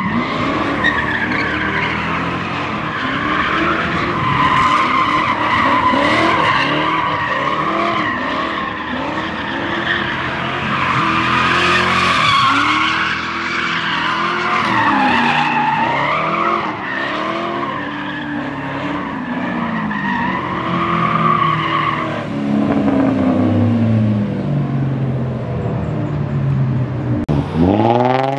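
A car doing donuts: its tires squeal continuously while the engine revs up and down over and over, with a sharp rising rev near the end.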